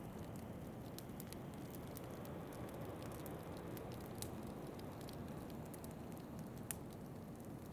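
Wood fire crackling in a fireplace: scattered sharp pops, one louder near the end, over a steady low rush of wind.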